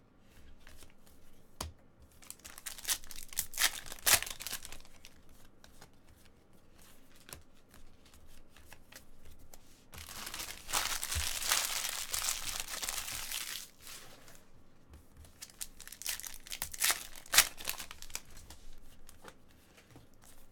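Foil wrapper of a trading-card pack crinkling and being torn open, with a few seconds of dense crinkling about ten seconds in and shorter bouts of crackling before and after.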